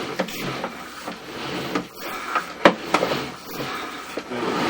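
Rubbing and scraping of a sewer inspection camera's push cable being drawn back through the line, with a few sharp clicks.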